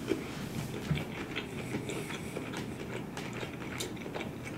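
Close-miked chewing: small, irregular wet clicks and smacks from a mouthful of food being chewed.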